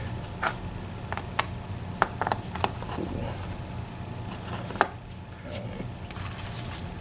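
Sharp metal clicks and taps from an EVVA ICS lock cylinder being worked apart with small tools, about seven irregular ticks, the loudest about two seconds in and just before five seconds, over a steady low hum.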